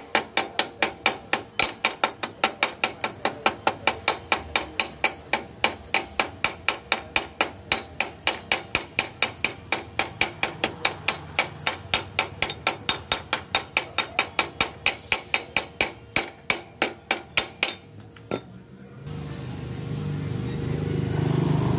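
A hammer tapping rapidly and evenly on the freshly welded steel side-stand bracket of a motorcycle frame, about four or five sharp metallic knocks a second. The knocks stop about 18 s in, and a steadier noise rises near the end.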